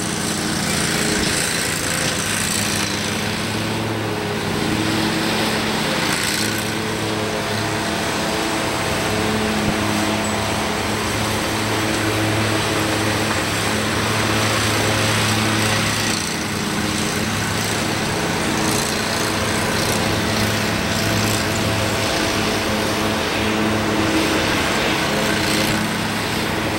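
Twin-engine jet airliner's engines at takeoff power during the takeoff roll: a loud, steady engine noise with a low, even hum under it, growing slightly louder as the plane comes nearer.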